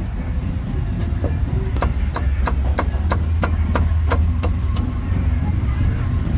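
Cleaver chopping meat on a chopping block: a run of about a dozen sharp strikes at roughly three a second, starting about two seconds in and stopping about five seconds in, over a steady low rumble.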